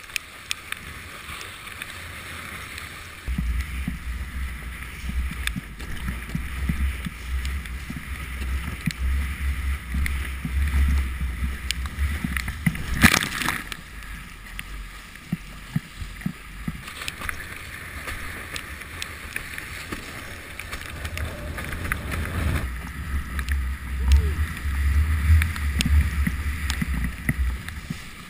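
Water rushing and spraying past a windsurf board planing over choppy water, with wind buffeting the action-camera microphone in a low rumble. The rumble comes in a few seconds in, fades about halfway through, and returns near the end. There is one sudden loud hit near the middle.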